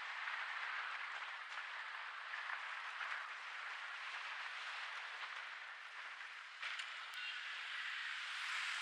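Steady rushing noise of wind and tyres while riding a motorbike, with no engine note standing out. A sharp click about seven seconds in.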